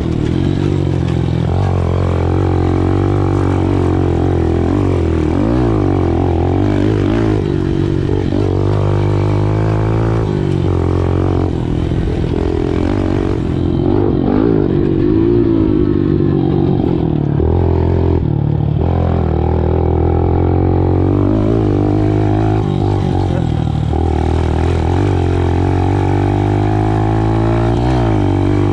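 Small 110cc pit bike engine running under riding, revving up and down continuously, its pitch rising and falling with the throttle.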